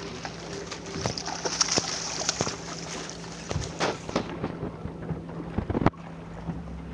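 Wind buffeting the microphone as a rough rumbling hiss, with scattered clicks and knocks and a steady low hum underneath; the hiss thins out about halfway through.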